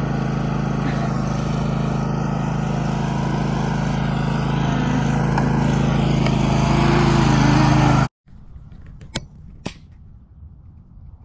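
A small engine running steadily close by, growing a little louder, then cut off abruptly about eight seconds in. A quieter stretch follows with a couple of sharp clicks.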